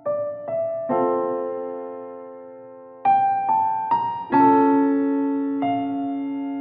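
Background keyboard music in a slow piano style: chords and single notes struck about once a second and left to ring and fade.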